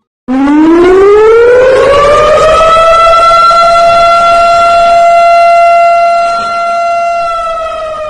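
A loud siren wail: one pitched tone with a sudden start glides upward for about two seconds, holds steady, then begins to sag near the end.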